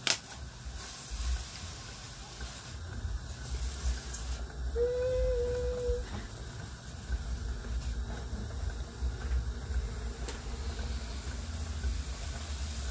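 Food cooking on a stove: a steady low rumble with a faint hiss of steam. A short steady tone sounds about five seconds in.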